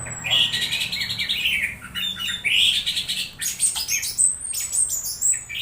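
Orange-headed thrush (anis merah) singing a fast, varied string of high chirps and warbled phrases with short gaps between them, with a thin high whistle sliding downward at the start and again about four seconds in.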